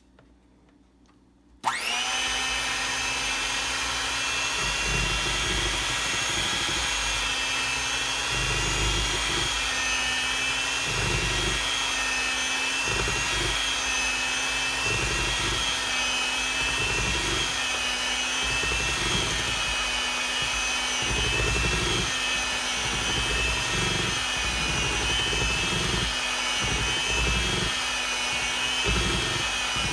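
Electric hand mixer switched on a little under two seconds in, its motor running with a steady whine while the beaters churn through banana bread batter in a bowl, giving an uneven low rumble underneath.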